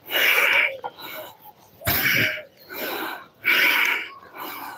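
Heavy, rhythmic breathing of a man swinging a wooden mugdar club, picked up close on a lapel mic: three forceful exhales, each followed by a softer breath in.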